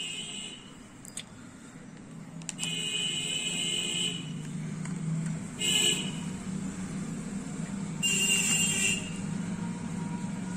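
Screws being turned out of a Vega hair dryer's plastic housing with a hand screwdriver, squeaking in four short bursts of up to about a second and a half, over a steady low hum.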